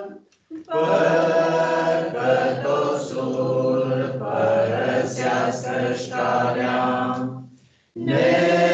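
A choir singing a Romanian hymn with no instruments heard, breaking off briefly about half a second in and again just before the end between phrases.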